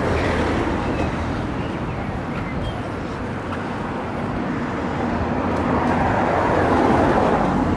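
Road traffic on a town street: a car driving past, its tyre and engine noise swelling louder near the end.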